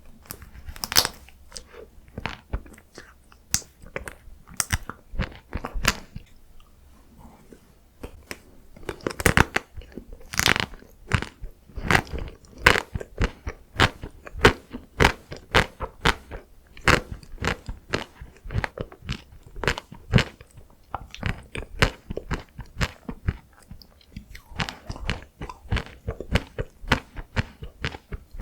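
Close-miked mouth sounds of someone biting and chewing chocolate-coated ice cream, with rapid crisp crunches and wet chewing clicks. There is a short lull about six seconds in, then the crunching picks up again.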